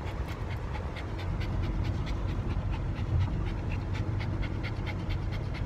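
Dog panting rapidly and steadily close by, about four pants a second, over the low rumble of the car.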